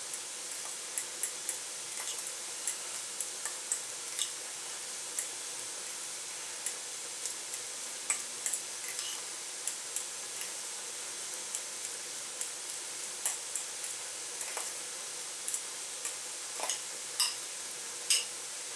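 A spoon clicking and scraping irregularly against a bowl as boiled rice is stirred together with turmeric, over a steady faint hiss.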